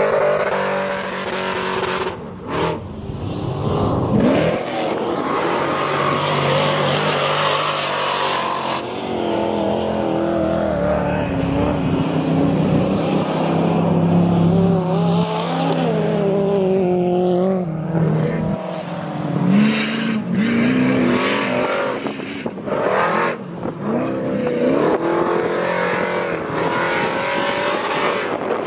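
Engines of off-road race trucks racing on a dirt track, revving up and dropping back again and again as they accelerate, change gear and pass, with more than one engine heard at once at times.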